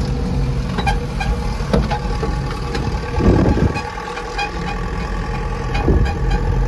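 TATA 1109 truck's diesel engine running steadily under way, heard from inside the cab, with small cab rattles and clicks. A brief louder sound about three seconds in.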